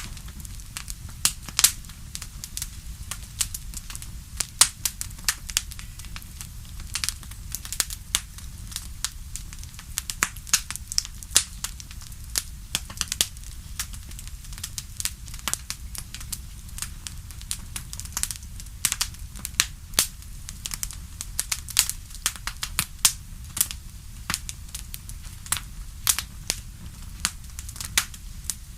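Wood fire in a fireplace crackling, with frequent sharp irregular pops and snaps over a steady low rumble of burning.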